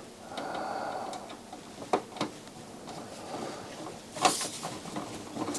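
Handling noise from work inside an opened stereo receiver: a few light clicks about two seconds in and a short scrape a little after four seconds, as small screws and metal parts are handled.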